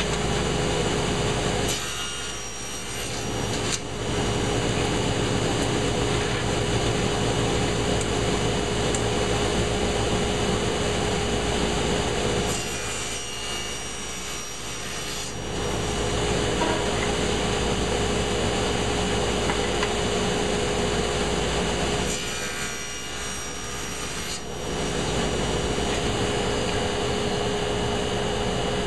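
Table saw running steadily while it cuts walnut boards. The sound changes three times, for about three seconds each, as the blade goes through the wood.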